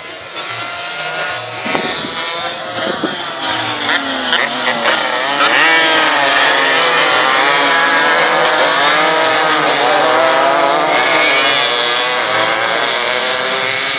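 Several racing motorcycle engines running hard at once, their pitch climbing and dropping as they rev and accelerate. The sound builds over the first few seconds and then stays loud.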